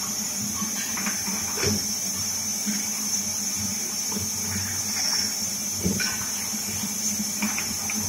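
Bottle-washing machine running: a steady motor hum with a constant hiss of water spray and spinning brushes, and a few short knocks of glass bottles being handled, the clearest about six seconds in.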